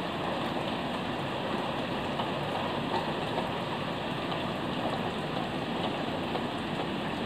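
Heavy rain falling steadily, an even hiss of water.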